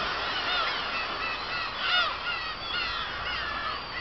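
A large flock of black-tailed gulls calling over one another: many short rising-and-falling calls overlapping, with a louder burst of calls about halfway through.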